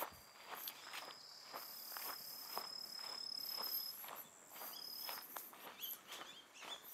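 Footsteps of someone walking on grass: soft, irregular steps about two a second. A steady high-pitched tone runs through the first half and comes back briefly later.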